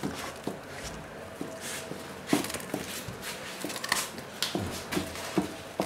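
A dog chewing and crunching a raw cabbage head: a string of irregular short crunches.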